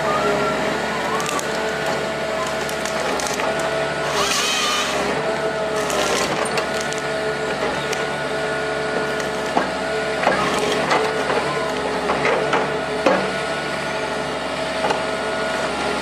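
Komatsu wheeled forestry harvester running steadily, engine and hydraulics humming, while its harvester head handles a tree. Two short hissing bursts come about four and six seconds in, and a run of sharp wood cracks and splintering follows in the second half.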